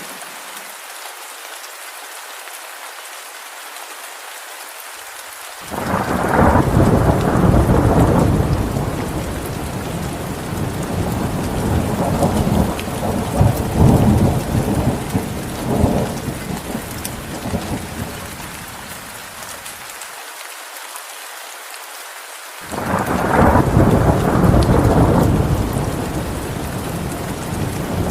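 Steady rain with two rolls of thunder: the first breaks in suddenly about six seconds in and rumbles on with several swells for about fourteen seconds, and the second starts abruptly near the end.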